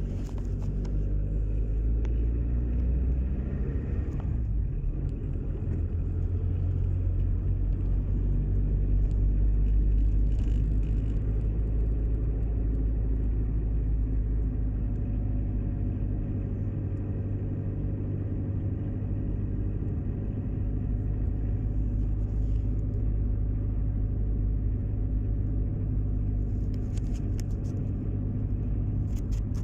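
Steady low rumble with a constant hum, like a motor vehicle running at an even speed, with a few faint clicks near the end.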